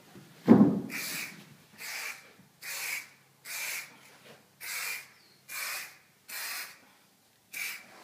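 A wooden board drops onto the plywood subfloor with a thud, then an aerosol can of marking paint hisses in about eight short sprays, roughly one a second, each spraying a layout mark along the board.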